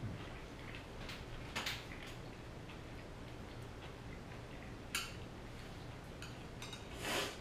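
A few light clicks of chopsticks against plates while eating noodles, over a low steady room hum, with a brief louder rush of noise near the end.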